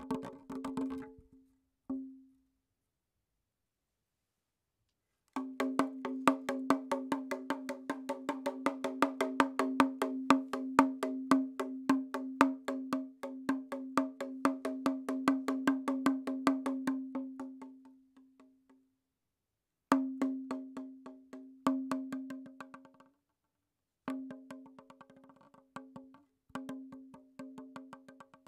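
Background music: fast wood-block-like ticking over a held tone, cutting out to silence several times.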